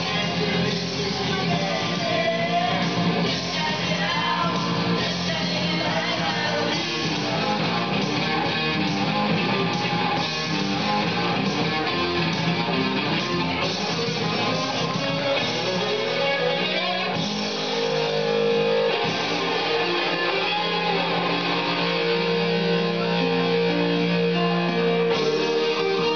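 Karaoke backing track led by guitar, played through a PA speaker, with young voices singing along into microphones.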